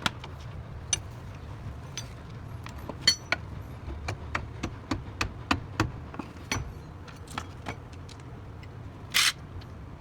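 Scattered light metallic clicks and taps of hand tools and car parts being handled, over a low steady hum, with a short hiss about nine seconds in.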